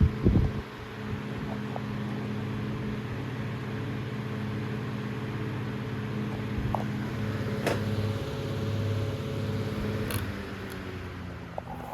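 Antique Emerson 29668 16-inch six-blade electric table fan running on high: a steady motor hum under the rush of moving air. There is a thump right at the start and a couple of sharp clicks later, and the hum drops away somewhat near the end.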